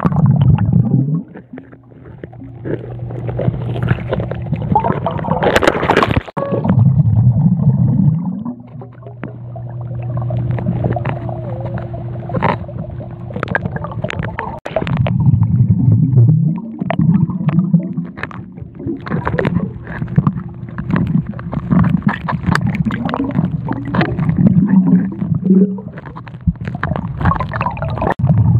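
Underwater sound of a swimming pool, heard through a phone held below the surface: muffled gurgling and bubbling with a low rumble that swells louder every several seconds, over a steady low hum.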